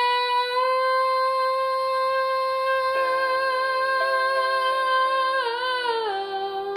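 A woman's singing voice holds one long, high note for about six seconds, wavering slightly and then gliding down near the end. Soft sustained backing chords come in under it about three seconds in.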